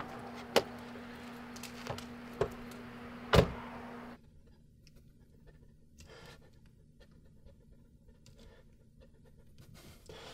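A car door is handled with a few sharp clicks, then slammed shut with a loud knock about three and a half seconds in. A steady hum stops abruptly soon after, leaving a near-silent car interior with faint small movements.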